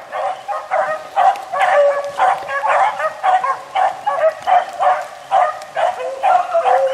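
Pack of beagles baying in quick succession, their calls overlapping: hounds giving tongue as they run a rabbit's scent trail.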